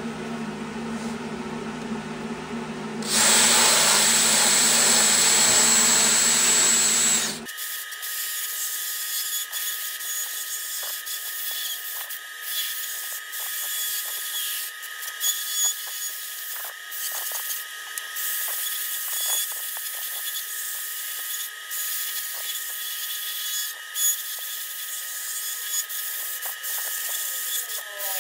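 A high-speed rotary grinding tool with a long burr cutting inside a cast-iron port of a Lincoln V12 flathead block: a steady high whine with scratchy grinding that dips and swells as the bit bears on the metal. About three seconds in, a loud hissing rush runs for about four seconds and stops abruptly.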